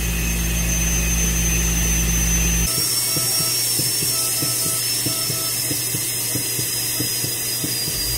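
High-speed dental handpiece whining steadily at a high pitch as it drills a cat's tooth. About two and a half seconds in, the sound cuts to a slightly lower, slowly falling whine with rapid faint clicking under it.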